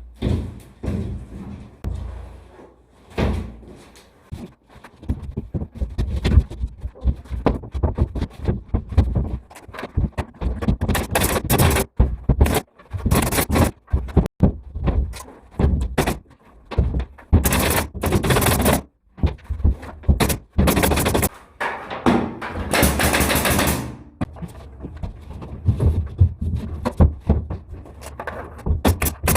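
Drywall and ceiling installation work: an irregular run of sharp knocks and bangs, with several longer stretches of noise in between.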